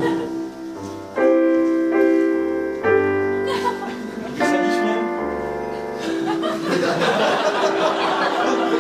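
Roland FP-4 digital piano playing slow held chords over low bass notes, with a new chord about every second.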